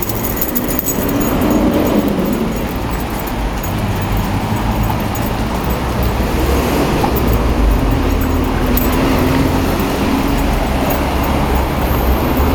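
Road traffic close by: motor vehicle engines running with a steady low drone that grows louder a few seconds in, over the general noise of a busy street.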